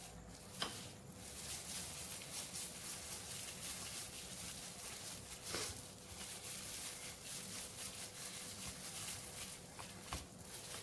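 Faint crinkling and rubbing of a thin plastic glove as a hand works thick masala paste onto pieces of fish on a plate. There is one light tap about half a second in.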